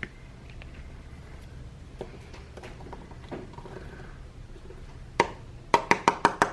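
A pine cone being stamped on paper on a tabletop: faint light scratches and taps, one sharp knock about five seconds in, then a quick run of sharp taps, about seven a second, near the end.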